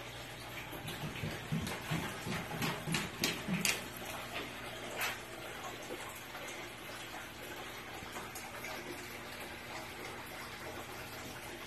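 Steady running water from the enclosure's water feature. A run of irregular knocks and rustles, the loudest sounds, comes about a second to five seconds in.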